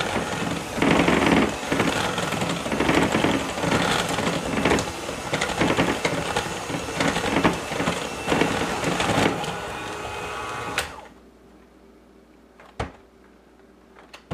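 KitchenAid electric hand mixer running on low, its beaters whipping milk chocolate ganache in a glass bowl with an uneven, fluctuating noise. It cuts off suddenly about eleven seconds in, followed by a couple of sharp clicks.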